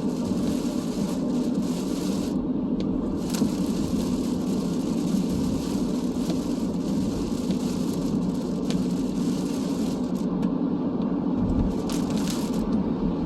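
Steady road and tyre noise heard from inside a car driving on wet streets, with scattered short ticks.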